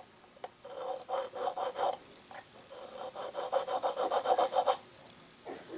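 Needle file scraping back and forth across the end of a hardened steel screw, dressing it up, in two runs of quick strokes: a short run about a second in, then a longer one at about five strokes a second.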